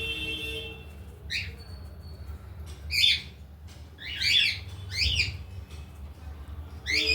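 Cockatiel giving short, sharp chirping squawks, about five calls a second or so apart.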